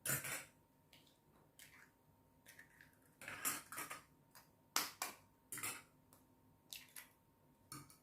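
Faint kitchenware clinking: a bowl and utensils knocked and set down in a series of separate short taps.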